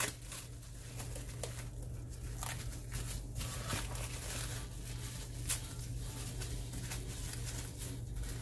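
Plastic cling wrap crinkling in irregular small crackles as it is rolled and twisted tight around a log of food by gloved hands, with a steady low hum underneath.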